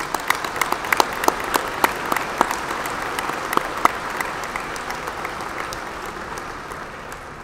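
Large audience applauding, with many sharp individual claps in the first few seconds, then the applause gradually dies away.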